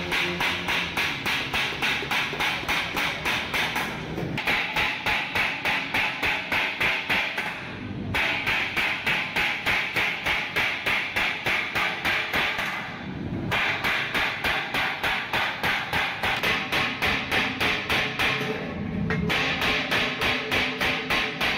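Small hammer striking galvanized sheet steel over a steel stake in rapid, even blows, about four a second, while closing the seam of a rolled cylinder. The ringing blows come in runs, with short pauses about four, eight, thirteen and nineteen seconds in.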